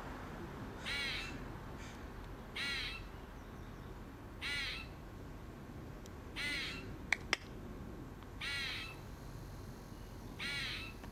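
An animal's harsh call, repeated six times at an even pace of about one every two seconds. Two sharp clicks come close together a little after the middle.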